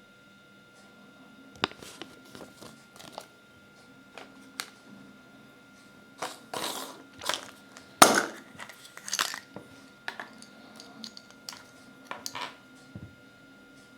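A Kinder Surprise egg and its wrapping being opened by hand: scattered clicks and crinkling, building to a cluster of louder crunches and cracks about halfway through, the sharpest crack coming just past the middle.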